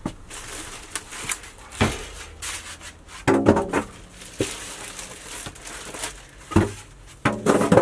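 Rustling and rubbing of packaging and paper being handled, with several knocks scattered through it.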